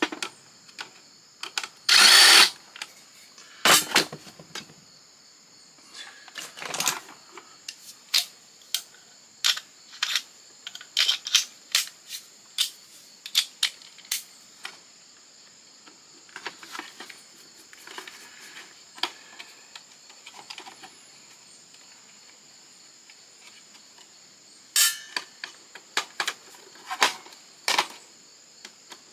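Hand disassembly of an old Canon fax machine: scattered clicks, taps and clinks of metal and plastic parts and tools, with a louder short burst of noise about two seconds in and another near the end.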